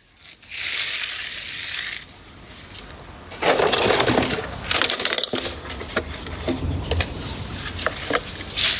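A short hiss, then a fast, irregular run of knocks, scrapes and crunching clatter, typical of hard objects being handled and struck in a workshop.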